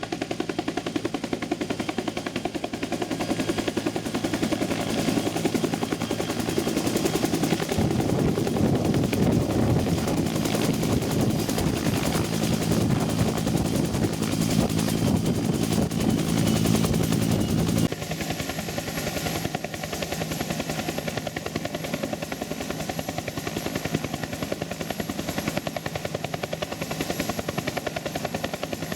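Helicopter rotor and engine noise: a rapid, steady beating of the rotor blades over a continuous hum. About eighteen seconds in it drops noticeably in level and becomes thinner.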